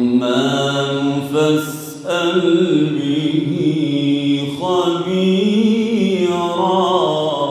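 A man reciting the Qur'an in a melodic, chanted style, holding long ornamented notes that waver and glide in pitch, with short breaths about two seconds and four and a half seconds in.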